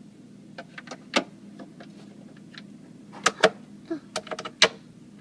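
A string of sharp clicks and knocks of hard plastic as small plastic toy figures and a plastic container are moved about on refrigerator shelves. The loudest knocks come about a second in, around three and a half seconds in, and near the end, over a low steady hum.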